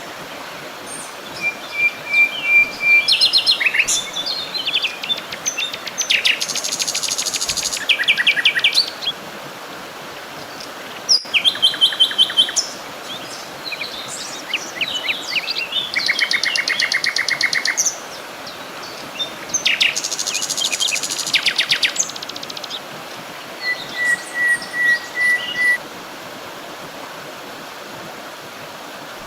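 Several songbirds singing and calling in turn: fast trills and quick chirps come in bursts every second or two, with a couple of thin held whistles, over a steady background hiss.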